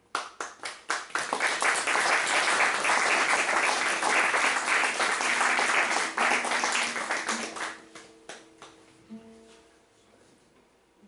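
Audience applauding: a few separate claps, then steady applause that thins to scattered claps about eight seconds in. Soft single notes on a classical guitar sound underneath in the second half.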